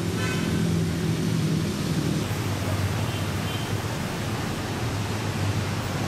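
Steady outdoor road and traffic noise with a low engine hum, stronger in the first two seconds, and a brief high-pitched tone about a quarter second in.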